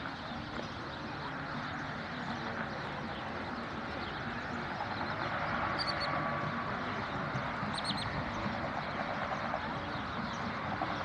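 Steady outdoor wind and water noise, with a few short, high bird calls about six and eight seconds in.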